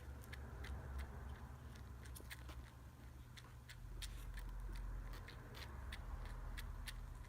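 A newborn kitten suckling milk from a feeding bottle: small wet clicking and smacking sounds, irregular, a few a second, over a low steady rumble.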